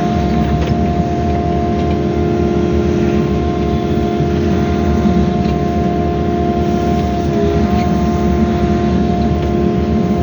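Excavator's diesel engine and hydraulics running steadily, with a constant whine over a low rumble; the whine dips briefly in pitch about seven and a half seconds in.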